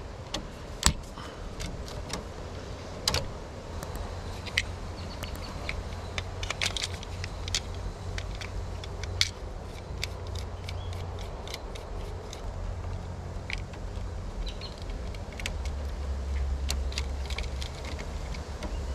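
Scattered small clicks and scrapes of a screwdriver working the tiny terminal screws on an old Zinsco two-pole circuit breaker, with the plastic breaker and its wires being handled, over a low steady rumble.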